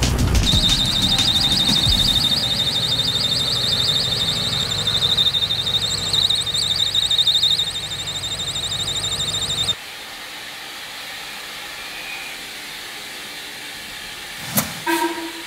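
Car engine's fan belt squealing: a high-pitched, fast-warbling squeal over the low running of the engine. It cuts off abruptly about ten seconds in, leaving a steady hiss.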